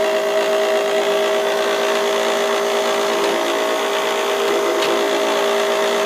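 The feed motor and gearbox of a Schaublin SV52 milling machine running steadily with a constant whine, driving the engaged up-and-down power feed.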